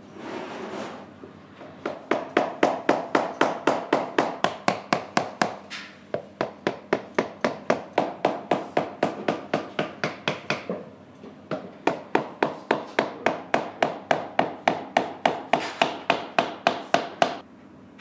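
Hammer tapping on a shoe sole, a fast even series of knocks at about four a second in two long runs with a short break in the middle.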